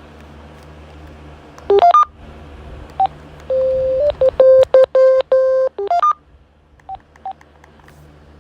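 A phone playing electronic ringtone beeps: a quick run of tones, a single beep, then a held tone that breaks into a fast stuttering run of beeps, another quick run of tones, and two faint short beeps near the end.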